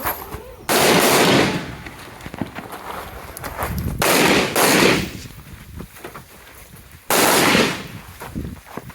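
Three loud rifle shots about three seconds apart, each starting suddenly and ringing on for most of a second, with fainter sharp cracks of distant gunfire between them.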